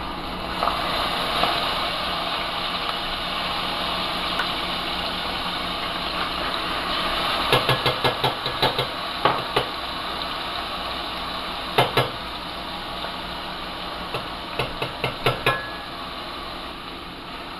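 Metal spoon clinking sharply against a stainless steel skillet and glass jar while minced garlic is spooned into oil, the clinks coming in quick clusters over a steady hiss.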